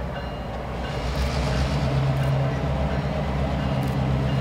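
EMD F-unit diesel locomotives, an F9A leading, running with a steady low engine drone. The drone grows a little louder about a second in and then holds.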